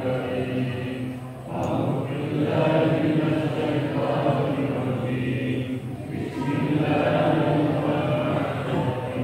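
Several men chanting an Islamic devotional recitation together, led over a microphone, in long phrases with short breaks about 1.5 s and 6 s in.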